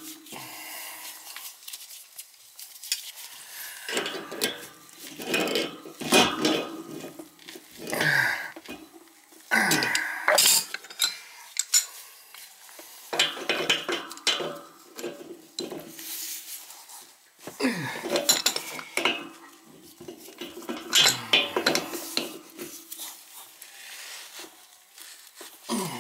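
Irregular metallic clinks and scrapes of steel pipe fittings and a pipe wrench as a nipple and fitting are threaded into the bottom tapping of a cast iron radiator and tightened.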